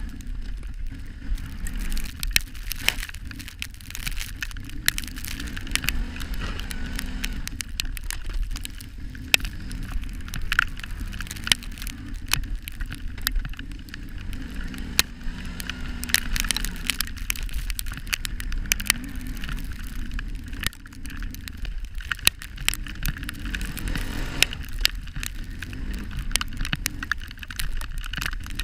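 Kawasaki Brute Force 650 ATV's V-twin engine running under plowing load. Frequent sharp clicks and crackles run over the steady low engine sound.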